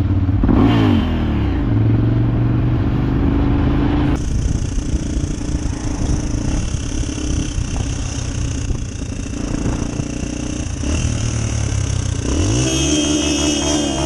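Motorcycle engine running under way, its revs dipping and climbing again through a gear change about a second in and again near the end. From about four seconds in, a steady hiss runs under it.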